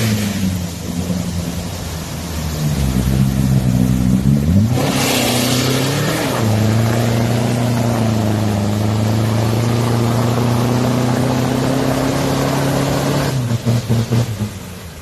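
Off-road vehicle engine under throttle: the revs climb about five seconds in and are held high and steady, then drop away suddenly near the end.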